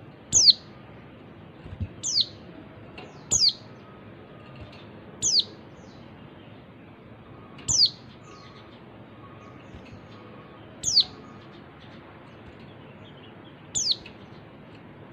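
Female white-eye (pleci) giving short, high call notes that sweep downward, about seven of them at uneven gaps of one to three seconds, over a steady hiss.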